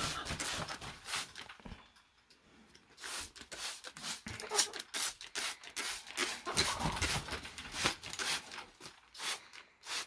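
Quick, irregular squirts of a trigger spray bottle and the flapping of a wet blue-and-gold macaw's wings. There is a short lull about a second in, and the bursts come thick again from about three seconds in.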